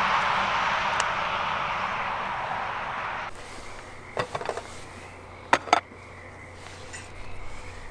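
Road traffic noise from a passing car fades and then cuts off about three seconds in. A few light metallic clinks follow as the lid is handled on a camping cooking pot, with two sharp clinks a little later.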